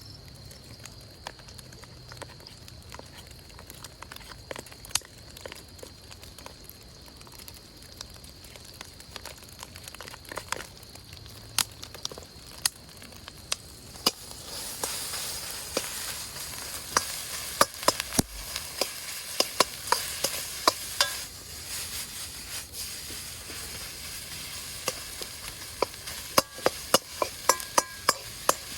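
Fried rice being stir-fried in a Chinese wok over a campfire: food sizzling, with repeated sharp clacks of a metal cooking utensil against the wok. The sizzle gets much louder about halfway through and the clacking comes faster.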